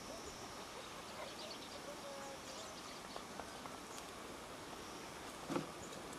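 Faint rural outdoor ambience: a steady hiss with scattered faint high chirps, and one short knock about five and a half seconds in.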